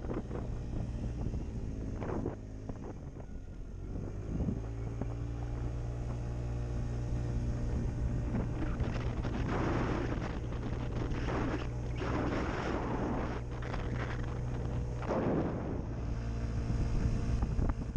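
Motor scooter's engine running steadily under way, its note shifting about four seconds in, with wind rushing over the microphone in several gusts.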